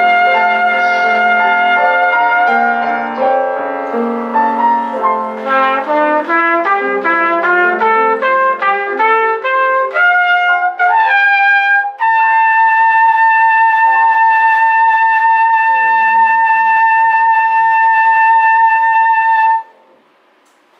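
Trumpet playing with piano accompaniment: held notes, then a run of quick notes and a climb up to one long high note held for about seven seconds over the piano's chords, ending cleanly about a second before the end.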